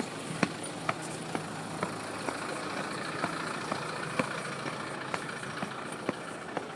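Footsteps walking at a steady pace, about two sharp steps a second, over a steady background hum that swells a little in the middle.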